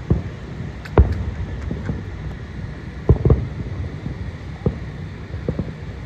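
Aerial firework shells bursting in a string of irregular booms. The sharpest comes about a second in, two follow close together around three seconds in, and more come at uneven gaps after that, over a low steady rumble.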